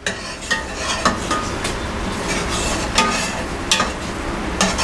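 Hot desi ghee poured onto chickpea curry in a steel pot for a tadka, sizzling and spluttering steadily. The sizzle starts suddenly, with a few sharp metal clinks of a ladle against the pot.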